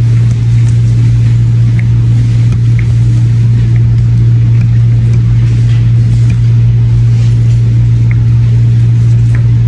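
A loud, steady low hum with no change in pitch, over a few faint light taps of a bingo dauber stamping a paper card.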